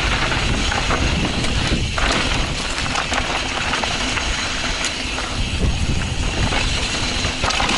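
Mountain bike descending a loose dirt trail: tyres crunching and sliding over loose soil and rocks, with the bike rattling and wind rushing over the camera microphone.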